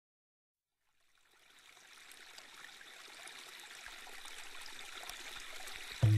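A steady rushing hiss of running water fades in after about a second of silence and grows gradually louder. A loud low tone starts right at the end.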